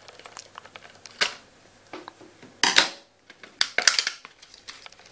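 Scissors snipping and a clear plastic packaging box crackling and clicking as it is cut and pried open, in short sharp bursts that are loudest about halfway through.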